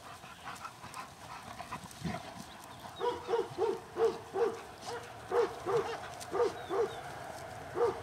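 Labrador retriever barking, starting about three seconds in: short, same-pitched barks about three a second in runs of two to four, eager play barks at a stick held up to be thrown.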